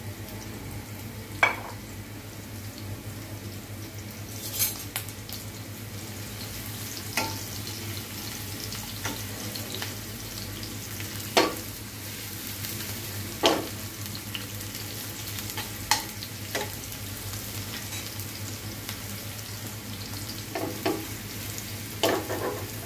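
Sliced onions sizzling steadily in hot oil in a frying pan, with a few sharp knocks of a utensil against the pan as they are stirred.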